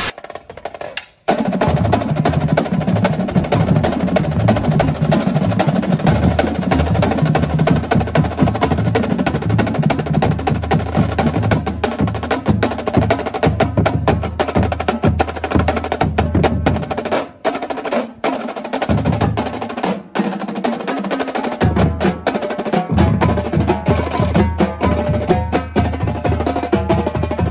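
Marching drumline of snare drums, tenor drums and Ludwig bass drums playing a paradiddle exercise together in fast, dense sticking, starting about a second in after a short gap. The low bass drums drop out for a few seconds a little past the middle, then come back in.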